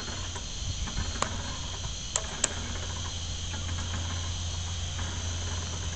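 Steady high-pitched insect chorus, with a low steady hum beneath it. A few sharp clicks stand out: one a little over a second in, and two more close together around two seconds in.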